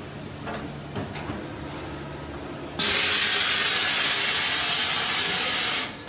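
Vacuum-forming machine releasing a loud, steady hiss of rushing air that starts suddenly about three seconds in and cuts off just before the end, as the heated ABS sheet is pulled down over the mould into a liner. A small click comes about a second in.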